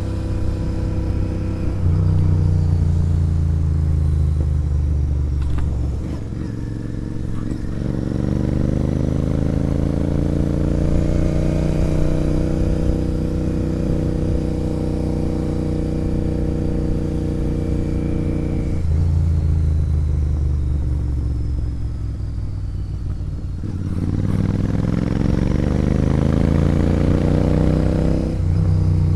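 Royal Enfield Interceptor 650's parallel-twin engine running through a sport exhaust while riding. The engine note rises under acceleration, holds steady while cruising, and drops sharply several times at gear changes or when the throttle is rolled off.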